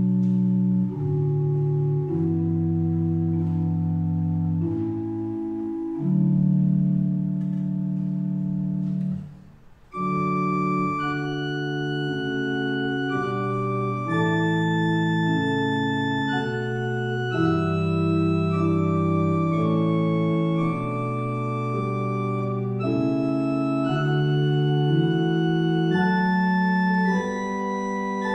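Church organ playing offertory music in slow held chords. It almost stops about nine seconds in, then goes on with a higher melody over sustained chords.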